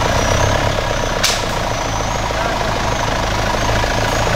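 Off-road 4x4 truck's engine idling steadily, with a sharp click about a second in and a faint high chirp repeating roughly once a second.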